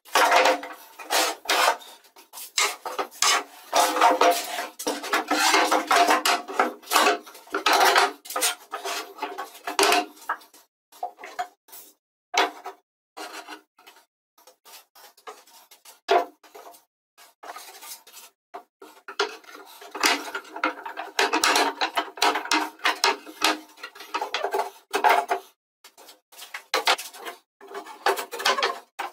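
Workshop handling noise: metal bar clamps clattering and being set onto glued boards, with wooden parts knocked and slid on the workbench. The clicks and scrapes come in two busy spells, one at the start and one about two-thirds of the way through, with sparser knocks between.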